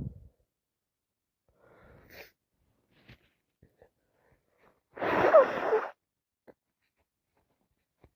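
A person sneezing with a cold: a soft breath in about two seconds in, then one loud, wet sneeze about five seconds in that lasts nearly a second. The end of an earlier sneeze is heard at the very start.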